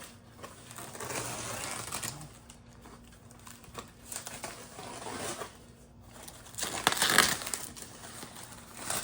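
Packing material rustling and crumpling as it is pulled out of a shipping box, in irregular handfuls, loudest about two thirds of the way through.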